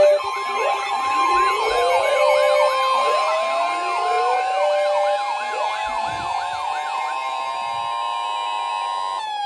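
A NOAA Weather Radio 1050 Hz warning alarm tone held steady for about nine seconds, the signal that a warning broadcast follows. Several sirens wail and yelp over it throughout, and they wind down after the tone cuts off near the end.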